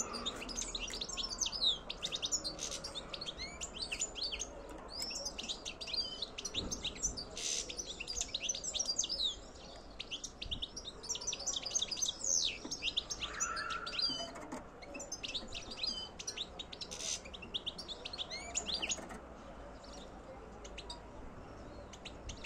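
European goldfinch singing a rapid twittering song of quick high notes in long phrases, with a short break about ten seconds in and growing sparser near the end.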